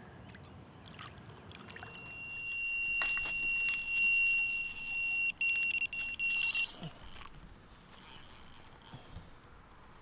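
Electronic carp bite alarm sounding one long, high, steady tone for about five seconds, breaking into rapid stuttering beeps before it stops: a fish is running off with the line.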